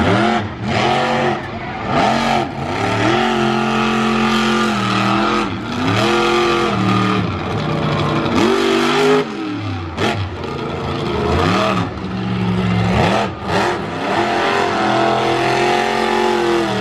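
Monster truck engine revving hard again and again, its pitch climbing and dropping back every second or two as the throttle is worked on and off.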